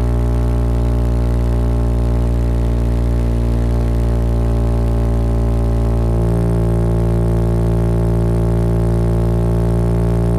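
Honda CB190R's single-cylinder engine running steadily at an even speed, a constant drone with a slight change in tone about six seconds in.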